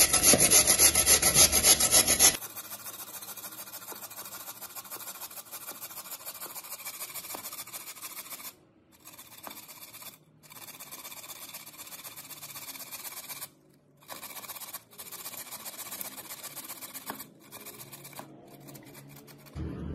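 Raw potato being grated on a flat metal hand grater: rapid rasping strokes. It is loud for the first couple of seconds, then much quieter, with a few short breaks between passes.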